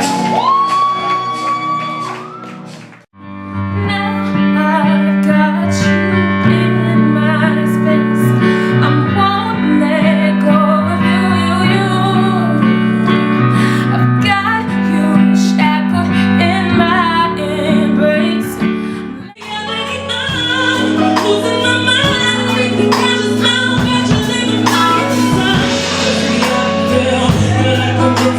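Music with singing, likely a female voice, over a steady bass line and plucked, guitar-like notes. The music cuts out briefly about three seconds in and again about two-thirds of the way through, then starts again.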